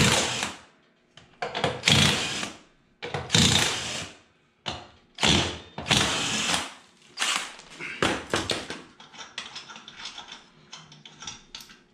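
Cordless impact wrench with a 21 mm socket hammering the lug nuts loose on a zero-turn mower's wheel, in about six short bursts. About nine seconds in the bursts stop, giving way to light metallic clicks and rattles as the nuts are taken off by hand.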